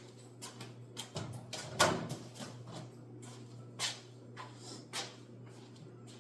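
Kitchen prep handling: scattered clicks and knocks of utensils, packaging and a bowl on the counter, the loudest about two seconds in, over a steady low hum.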